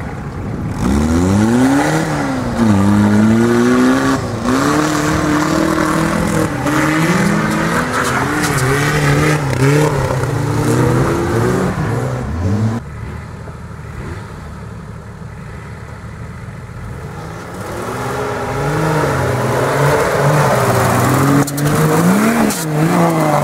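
Jeep Cherokee XJ engine revving hard off-road, its pitch repeatedly rising and falling with the throttle. About halfway through it drops back quieter for a few seconds, then revs up loudly again.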